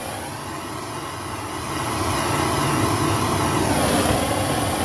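Handheld gas torch burning with a steady hissing flame, growing louder about two seconds in.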